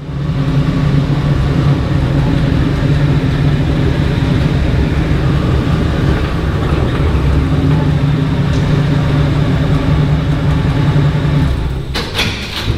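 A vehicle engine idling steadily with a low, even hum, then switched off near the end, followed by a few sharp clicks.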